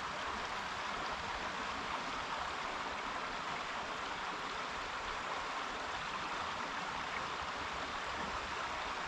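Creek water flowing steadily, a constant even rush; the creek is running high after rain.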